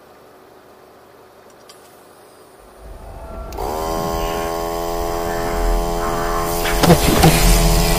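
12-volt car air compressor starting about three seconds in: its motor spins up and settles into a steady, loud buzzing hum as it blows air into a homemade valveless pulsejet to warm it up. A few sharp cracks near the end.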